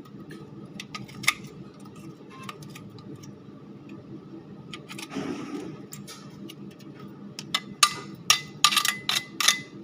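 Light clicks and taps of hard objects being handled, with a quick run of louder sharp clicks a couple of seconds before the end, over a steady low hum.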